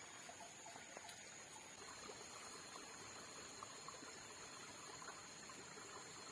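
Near silence: faint steady outdoor background with a thin, steady high-pitched tone, a second high tone joining about two seconds in, and a few faint soft ticks.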